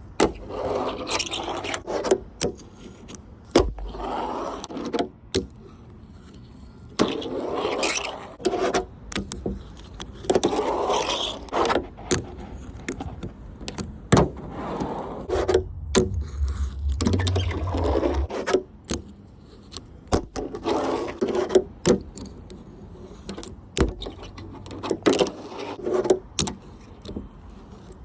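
A fingerboard on Blackriver trucks and Piro wheels rolling and scraping across a ramp in runs of a second or two, with many sharp clacks as the board pops and lands between the runs.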